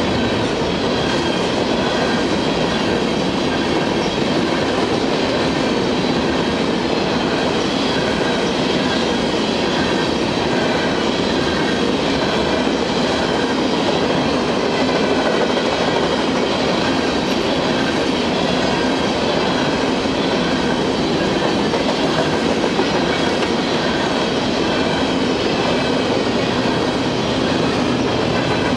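Coal hopper cars of a freight train rolling past close by: a steady rumble and clatter of steel wheels on rail, with faint high-pitched wheel squeal. Near the end a low, steady diesel engine hum comes in as a BNSF locomotive in the train draws near.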